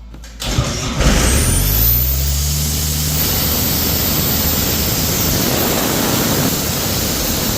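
Ingersoll Rand P185 tow-behind air compressor's diesel engine starting on its new starter: it catches about half a second in, its pitch climbs over the next two seconds, then it runs steadily and loud.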